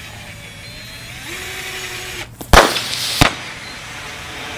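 Cordless drill running a screw into a spent DJI Phantom 1 LiPo battery pack. About two and a half seconds in, the punctured pack vents in thermal runaway with a loud sudden pop and rush of gas, then a second sharp pop, and goes on hissing steadily as it pours out smoke.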